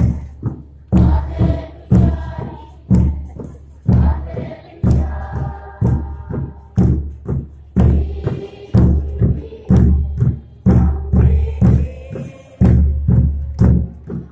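A group singing a chant-like dance song over a large drum beaten in a steady rhythm of about one heavy stroke a second, with lighter strokes in between.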